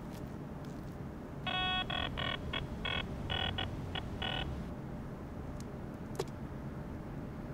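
Metal detector sounding its buzzy electronic target tone in about nine uneven beeps over some three seconds, starting about a second and a half in: the signal that metal lies under the coil. A steady low background rumble runs beneath it.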